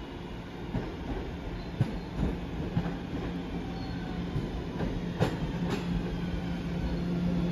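New York City subway A train approaching the station, growing a little louder toward the end, with a steady hum and several sharp clacks as the wheels cross rail joints.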